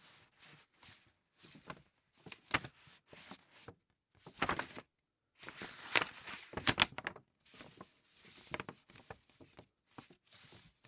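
Thick paper being handled: a string of short rustles and crinkles with brief pauses between them, loudest and densest around the middle.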